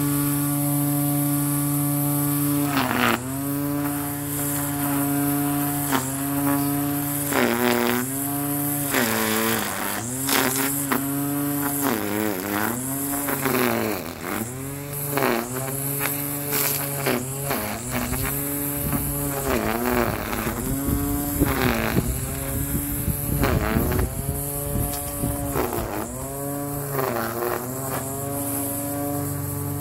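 Small electric string trimmer running with a steady whine. From about three seconds in, the pitch drops and recovers over and over as the spinning line cuts into grass and loads the motor.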